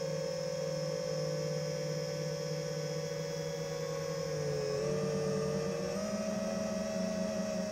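DJI FPV drone's motors and propellers humming steadily in flight. The pitch dips about four and a half seconds in, then steps up a little about six seconds in.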